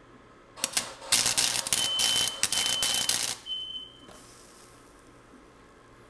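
Welding arc crackling as a nut is tack welded to a steel bracket: a short crackle about half a second in, then about two seconds of steady crackling, with a high steady whine through the later part of it.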